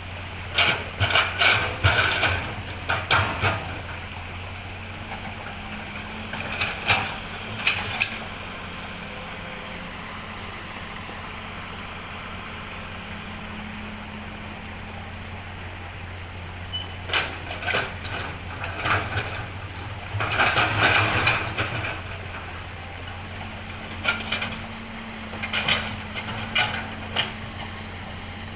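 Komatsu hydraulic excavator's diesel engine running steadily, with four bursts of metallic clanking and scraping as the bucket digs and loads soil.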